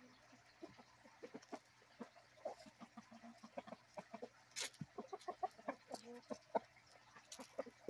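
Rooster clucking in quick runs of short, low notes while pecking at feed pellets on stone pavers, with sharp taps of its beak on the stone; the loudest tap comes about halfway through.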